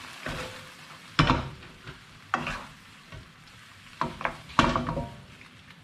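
Wooden spatula stirring and scraping a stir-fry of jackknife clams and vegetables around a non-stick pan, in a few separate strokes, over a faint sizzle of the food frying.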